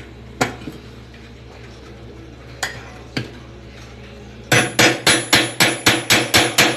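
A hammer striking the loosened 10 mm bolt at the centre of a Brastemp washing machine's basket hub. First come a few single metallic knocks, then from about four and a half seconds a quick, even run of about four ringing strikes a second. The blows drive the bolt down so that the wedge underneath opens and frees the basket.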